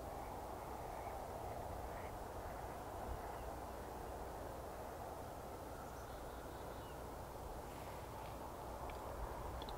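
Steady open-air ambience: an even low rumble and hiss, with a few faint, brief chirps now and then.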